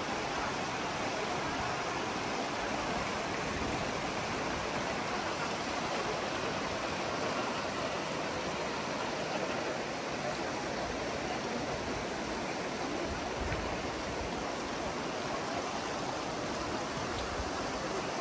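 Shallow Virgin River rushing steadily over a stony bed.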